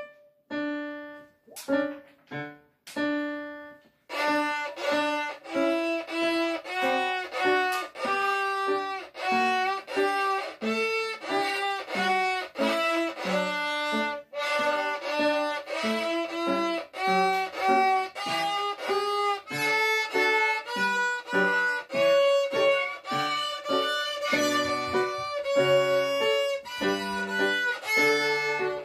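Violin playing a melody with digital piano accompaniment. A few separate notes open it, then the tune runs on without a break from about four seconds in.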